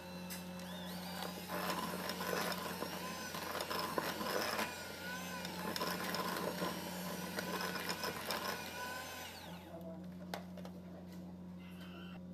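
Electric hand mixer running, its beaters churning thick ube cream cheese batter in a glass bowl. The mixer is switched off about three quarters of the way through and its sound falls away.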